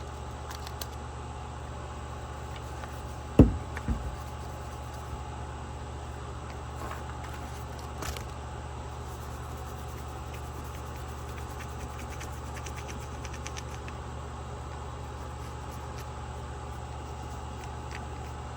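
A steady low mechanical hum, with two short knocks about three and a half and four seconds in.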